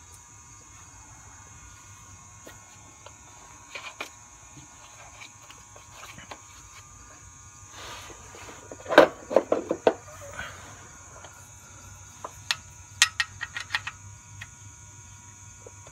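Crickets chirping steadily in the background. About nine seconds in comes a loud clatter of handled metal, and near the end a quick run of sharp metallic clicks as a wrench works the oil pan drain plug.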